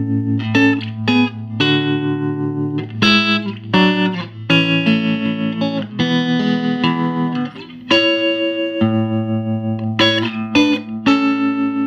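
Electric guitar, a Fender Stratocaster, played through a 1968 Fender Princeton amp with its original Oxford speaker, with amp and guitar turned all the way up. Picked notes and chords ring over a held low note, which drops out briefly about two-thirds of the way through.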